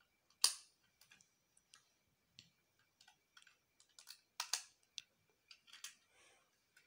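Plastic Lego bricks clicking and snapping together as a small car is put together by hand: a string of irregular sharp clicks, the loudest about half a second in and another loud pair about four and a half seconds in.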